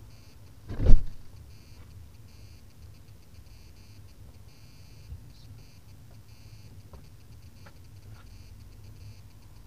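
A single heavy thump about a second in, over a low steady hum, with faint high electronic beeps repeating in short bursts and a few light ticks.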